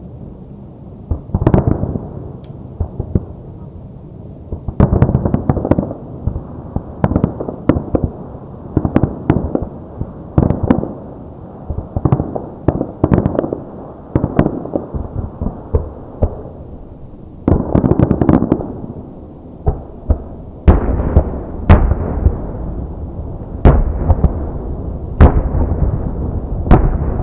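Fireworks display: many aerial shells bursting in quick succession, with crackling bursts between the bangs. In the last third the booms come heavier and deeper, with a low rumble under them.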